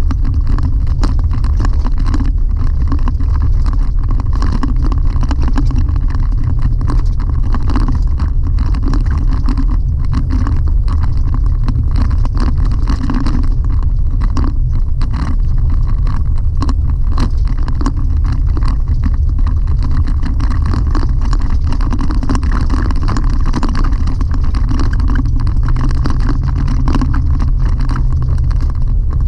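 Chevy Colorado ZR2 pickup driving on a gravel road, heard from inside the cab: a steady low rumble of engine and tyres with many small clicks and rattles from gravel and the truck.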